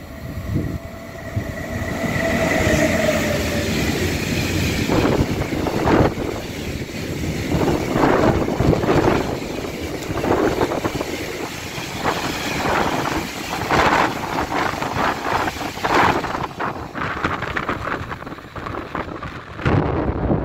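A freight train of tank wagons behind an electric locomotive passing close by at speed. A steady whine in the first few seconds as the locomotive goes by, then continuous rolling noise with repeated clatter of wheels over the rails as the wagons run past.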